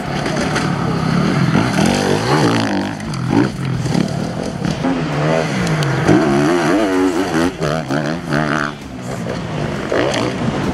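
Enduro motorcycle engine being ridden hard, its pitch rising and falling over and over as the throttle is opened and closed.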